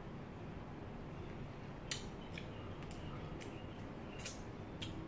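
Someone eating by hand and chewing: a run of about seven short, sharp mouth clicks and smacks over three seconds, the first the loudest, over a steady low room hum.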